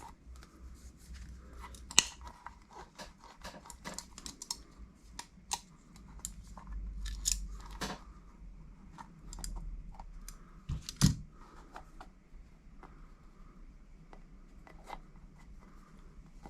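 Scattered clicks and rustling of hands working a soft rubber RC crawler tyre with a belt hole punch, punching a vent hole. There are sharp snaps about two seconds in and again near eleven seconds.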